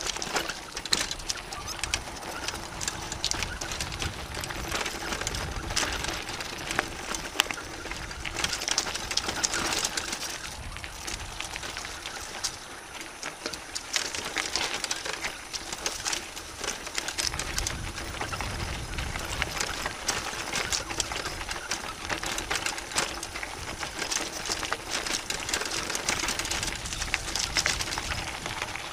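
Mountain bike rolling along a loose, stony dirt track covered in dry leaves: a continuous irregular crunching and rattling of tyres over gravel and of the bike shaking, with wind rumbling on the microphone now and then.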